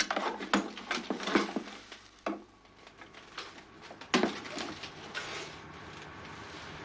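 Clatter and sharp knocks of gear being hurriedly handled and packed on wooden boards, with several quick knocks in the first two seconds and a single loud one about four seconds in. Near the end, a steady low rumble fades in.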